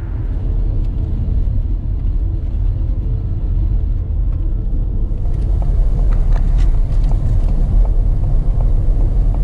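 Ford Mustang Mach-E electric SUV driving on a concrete test track: a steady low rumble, with a handful of sharp ticks between about five and seven seconds in.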